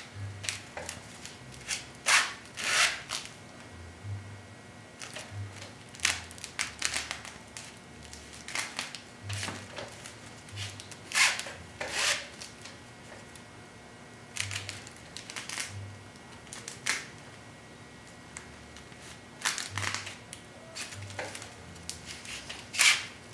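Stiff broomcorn straw rustling and scraping as a broom is hand-stitched with a needle and twine, the twine pulled through the bound straw. The strokes come at irregular intervals: short clicks mixed with scratchy scrapes about half a second long.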